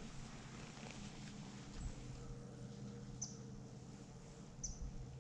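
Quiet woodland ambience with a small bird giving two short, high chirps, one about three seconds in and another near the end.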